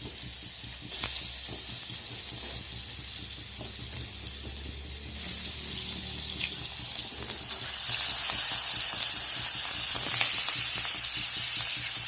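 Chopped onion frying in hot mustard oil in a kadai: a steady sizzle that gets louder in steps about a second, five seconds and eight seconds in, with a few light knocks.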